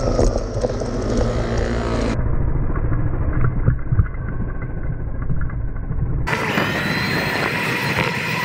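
Street traffic and wind rumble heard from a bicycle-mounted camera while riding, with a motor scooter's engine running close alongside midway through. The sound turns muffled about two seconds in and opens up again around six seconds.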